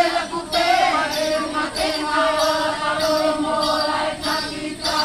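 A group of voices chanting together in long held notes, the sung chant of the Togo ritual dance of Palue, with short pauses between phrases.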